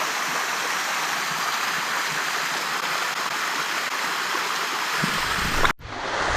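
Waterfall water rushing steadily. About five seconds in, a low rumble joins it, and the sound drops out for a split second near the end.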